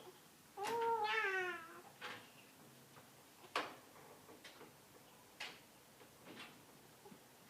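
A single high, wavering cry about a second long that slides down in pitch, followed by a few short, soft clicks or breaths.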